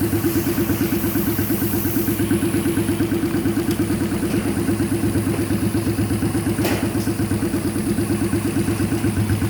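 1000 cc car engine in a custom-built motorcycle, idling steadily on its own with an even, pulsing beat. A single short click about two-thirds of the way through.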